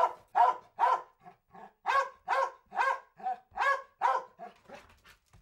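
A dog barking over and over in a quick, even run of short barks, about two or three a second, growing fainter near the end.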